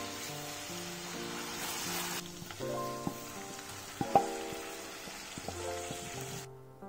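Chilli-garlic butter sauce sizzling in a frying pan, with background music over it. About two seconds in the sizzle drops quieter; shrimp are then tipped in off a spatula with a few clicks and one sharp knock against the pan. The sizzle cuts off suddenly near the end.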